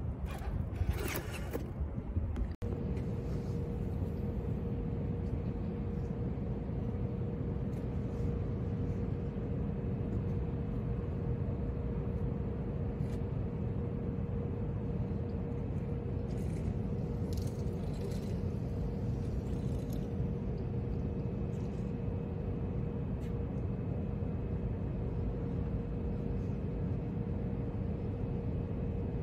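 Steady low outdoor rumble with a constant hum running through it and a few faint clicks.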